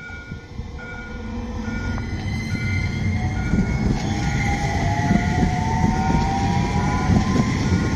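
Light-rail tram passing close by, its rumble on the rails growing louder and its traction-motor whine rising in pitch from about two seconds in as it gathers speed. A repeating electronic warning beep sounds at an even pace behind it.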